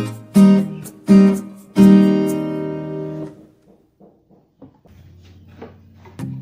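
Background music: strummed guitar chords, struck three times in the first two seconds and left to ring and fade, then a few faint plucked notes before the music picks up again near the end.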